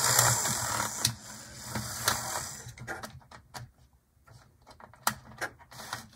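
Small HO-scale model locomotive chassis (Life-Like Proto ALCO FM2) running on the track, its motor humming and the gear train giving off a ratcheting clatter that the owner takes for a cracked gear. The running dies away about halfway through, leaving a few separate clicks.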